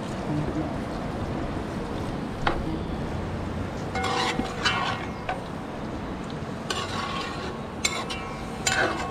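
A metal spoon stirring curry lobster in coconut-milk sauce in an aluminium pot, scraping and clinking against the pot several times at irregular moments, with a small cluster of clinks about four seconds in. A steady low background noise runs underneath.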